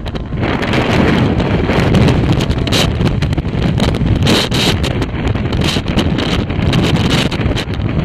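Storm-force wind buffeting the camera's microphone, loud and continuous, surging in many short gusts.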